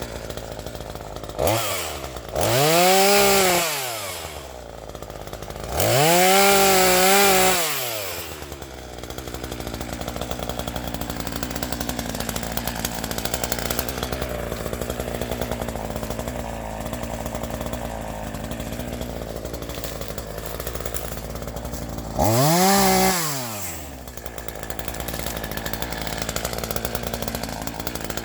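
Two-stroke chainsaw running at idle, revved up three times, about two seconds in, about six seconds in and near the end. Each time the pitch climbs, holds for a second or two, then drops back to idle.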